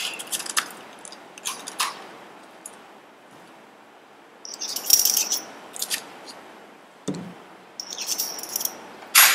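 Metal spatula clinking and scraping against a glass test tube and reagent bottle while cobalt(II) chloride crystals are scooped into the tube: clusters of short clicks and scrapes, some with a brief high ring, and a dull knock about seven seconds in.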